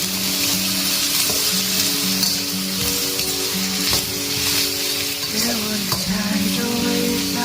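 Food sizzling as it is stir-fried in a pan, with a few short knocks of the spatula against the pan. Soft background music with held notes plays underneath.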